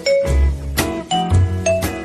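Background music: a light, bouncy tune of struck, ringing notes over a bass note that repeats about twice a second.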